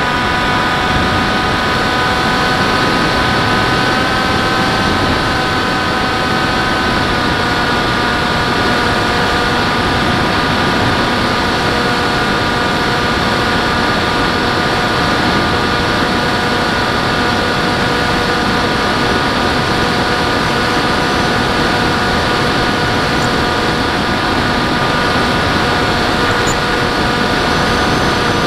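Model airplane's motor and propeller running steadily, heard from the onboard camera as a constant whine over rushing wind. The pitch dips slightly about seven seconds in and then holds.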